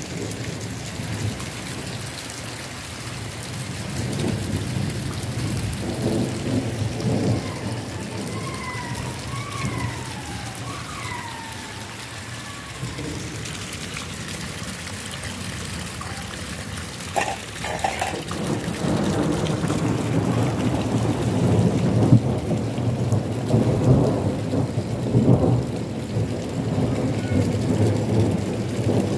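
Heavy rain pouring and splashing onto a flooded yard as a continuous hiss. A deep rumble underneath grows louder in the second half.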